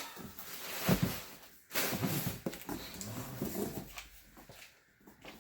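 Large empty cardboard box being handled and pushed aside: scraping and rustling cardboard, with a knock about a second in.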